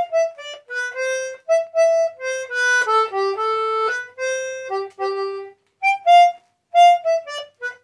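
Small button concertina playing a simple made-up tune by a self-taught beginner: single reedy notes, mostly short with gaps between them, a few held for about a second in the middle.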